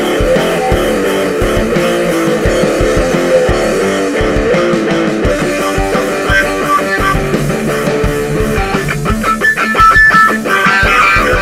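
Guitar-led rock music with bass and a steady beat.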